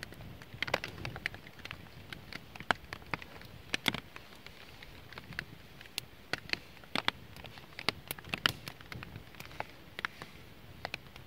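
Small wood campfire crackling, with irregular sharp pops over a faint steady hiss.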